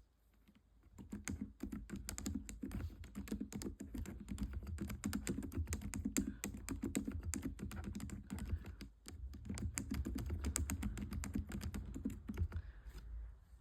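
Computer keyboard being typed on quickly, a dense run of key clicks, with a brief pause about nine seconds in.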